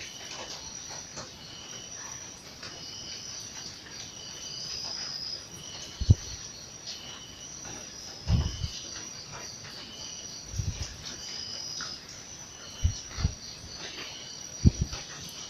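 Insects chirping in short, repeated high bursts, with about six dull low thumps scattered through it.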